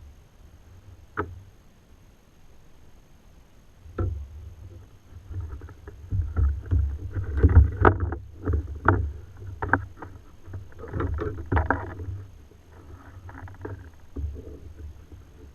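Handling and water sounds on a plastic sit-on-top kayak: a couple of sharp single knocks, then from about four seconds in a busy run of irregular knocks, bumps and sloshing with low rumble.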